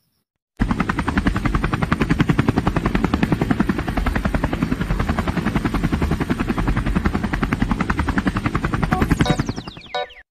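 Channel-intro sound effect: a loud, rapid chopping pulse, like helicopter rotor beats, starting suddenly about half a second in, with falling swooshes near the end before it cuts off.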